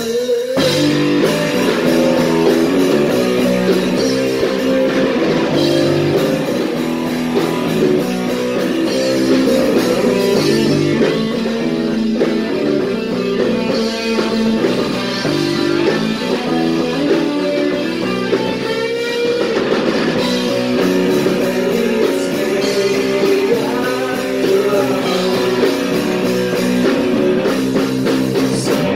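Punk rock band playing live: guitar and drum kit, with a voice singing in places.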